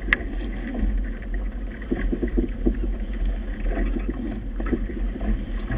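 Wind buffeting the GoPro's microphone as a boat rocks in choppy river water, with water slapping and splashing against the hull throughout. A sharp click sounds just after the start.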